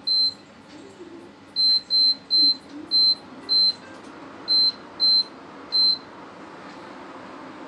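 Prestige induction cooktop's control panel beeping: nine short, high-pitched beeps, one with each touch-button press, unevenly spaced over about six seconds.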